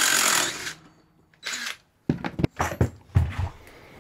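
Power drill running to back out a bolt, stopping just under a second in, followed by several sharp clicks and knocks of parts being handled.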